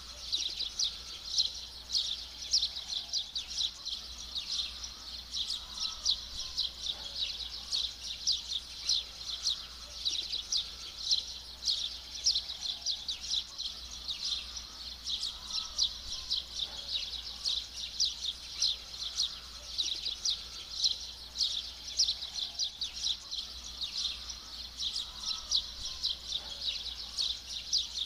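A dense chorus of small birds chirping and tweeting, many high quick calls overlapping without a break.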